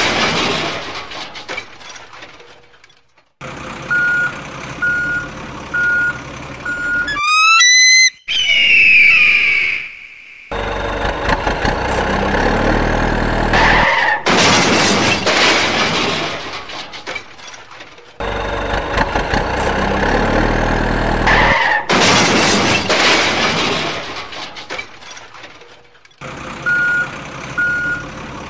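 Edited-in heavy truck sound effects: a diesel truck engine running and rumbling in several cut-together stretches, a reversing beeper sounding twice, once a few seconds in and again near the end, and a quick rising whistle-like sweep about eight seconds in, followed by a squeal.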